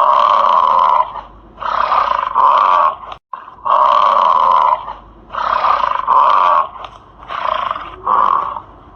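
An animal calling over and over: about seven loud calls of half a second to a second each, in quick succession, with a short break about three seconds in.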